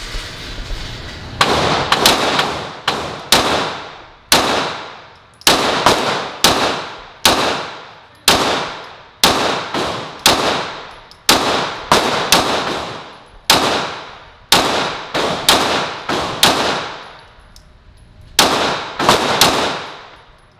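9 mm Glock 17 pistol fired in a long string, some two dozen shots at about two a second, each crack trailing off in a short echo. After a pause of a second or so near the end, a last few shots follow.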